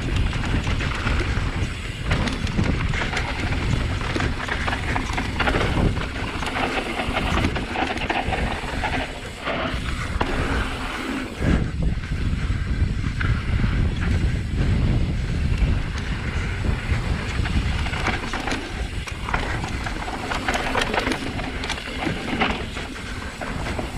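Mountain bike riding fast down a loose dirt trail: steady wind buffeting on the microphone mixed with tyre and bike rattle over the ground.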